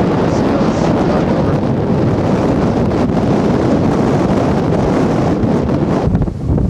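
Wind buffeting the camcorder microphone: a loud, steady rush of noise that eases and breaks into separate gusts near the end.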